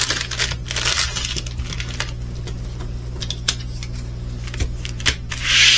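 Diamond painting kit and its packaging being handled: scattered light plastic clicks and rattles, with two short rustles about a second in and near the end, over a steady low hum.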